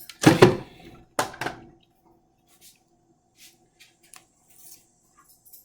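Kitchen things being handled on a counter: two knocks about a second apart near the start, then a few faint taps and clicks.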